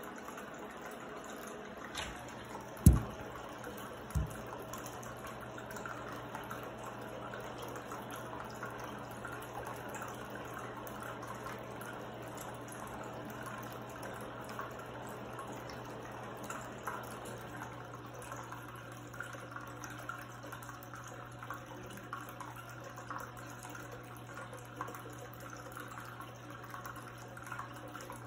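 Small tabletop rock-cascade fountain: water trickling and splashing down its tiers into the basin. A loud low thump about three seconds in and a smaller one a second later, then a steady low hum sets in.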